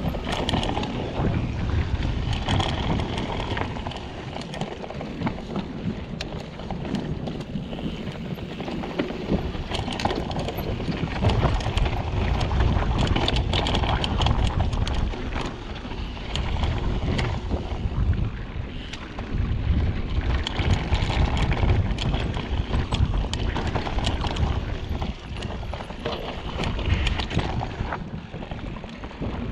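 Mountain bike being ridden down a rough trail: wind buffets the microphone in surges, and the tyres and frame rattle over the ground in many short clicks.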